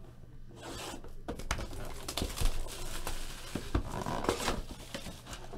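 Plastic wrapper on a sealed box of football trading cards crinkling and tearing as it is pulled off, then the cardboard box being opened. Scattered small clicks and scrapes run through it.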